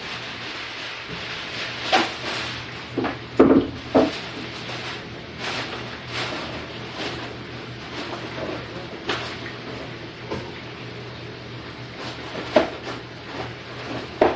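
Kitchen handling sounds: scattered knocks and clicks with rustling as a sheet is pulled off a roll and torn to size to line a pan, over a steady low hum.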